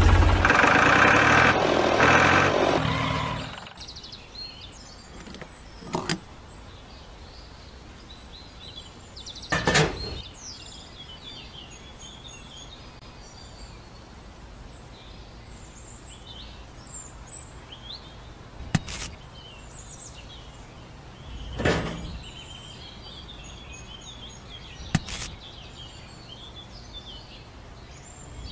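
Engine-like running sound of a miniature toy tractor that stops about three seconds in. After it come birds chirping in the background and a handful of sharp knocks spaced several seconds apart.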